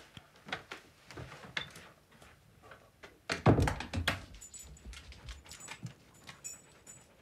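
Soft footsteps, then a wooden interior door pulled shut with a thunk about three and a half seconds in. Afterwards a dog's metal collar tag jingles faintly as the dog walks.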